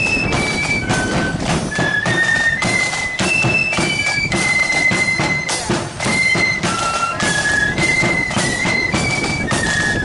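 Marching flute band playing a tune in unison on flutes, a single high melody line moving briskly from note to note, over drums beating a steady march rhythm.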